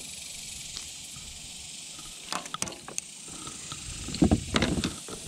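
Knocks and rattling clicks of fishing gear being handled in a plastic pedal kayak: a cluster of sharp clicks about two seconds in and louder knocks and rattles near the end, over a steady high hiss.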